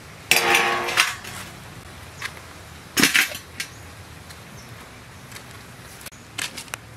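Stainless steel bowl set down on a concrete slab with a metallic clang that rings briefly, followed by a second clank about three seconds in as a metal tray of food is put down. A few light clicks near the end.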